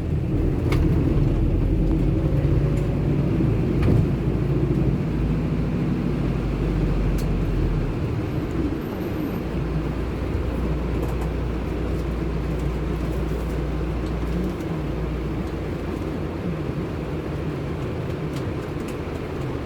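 Car on the move: a steady engine and road rumble with slowly shifting engine pitch, and a few faint clicks.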